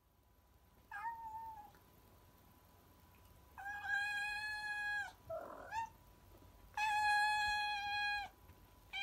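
Domestic cat meowing: a short meow about a second in, then two long, level meows of about a second and a half each, with a brief rougher sound between them.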